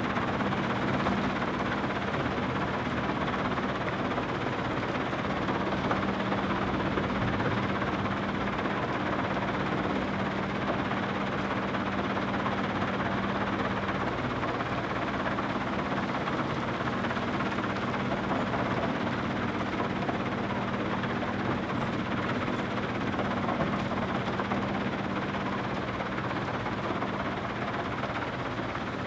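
Heavy quarry machinery running steadily: the diesel engines of a New Holland Kobelco E305C excavator and a Terex Finlay 883+ mobile screening plant, a continuous drone with a steady engine note that drops out briefly about halfway through.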